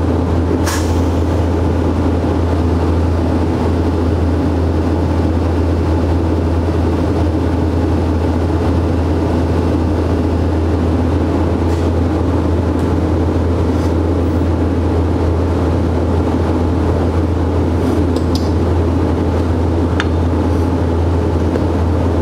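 Steady low hum of a running TIG welding machine during a small tack weld on a steel pin, with a few faint ticks scattered through it.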